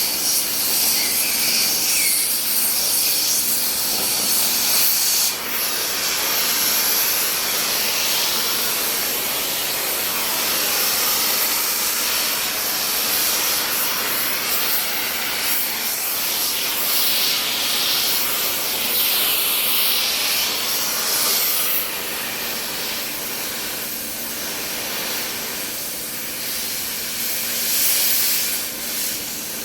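Welding: a steady high hiss with crackle from the work. It breaks off briefly about five seconds in.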